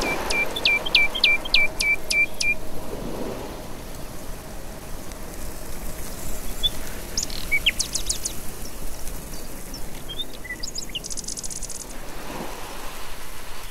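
Birdsong: a bird repeats a short, sharp call about seven times in quick succession, roughly three a second, then scattered single chirps and a brief rapid high trill follow over a faint steady hiss.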